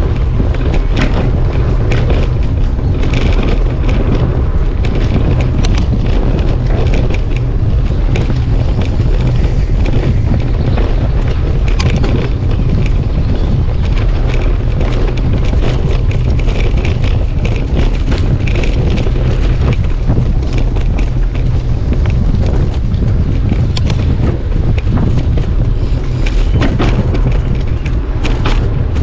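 Wind buffeting a camera mounted on a mountain bike's handlebars, with the steady low rumble of knobby tyres on a bumpy dirt track and frequent clicks and knocks as the bike rattles.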